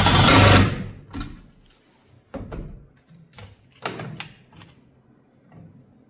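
A loud rattling clatter lasting under a second, then a string of separate knocks and clinks, from handling loose bolts and hardware on a garage door's wheel bracket.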